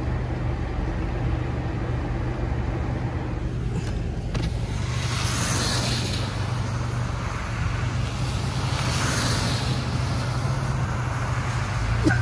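Steady low hum of a car's running engine, heard from inside the cabin. Passing vehicles swish by on the wet, slushy road twice, once around the middle and again a few seconds later.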